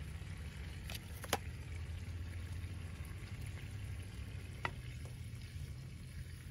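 Food sizzling in a frying pan on a small wood-burning camp stove, with sharp clinks as the pan's lid comes off and the food is lifted out: two about a second in, the second the loudest, and two lighter ones near the end.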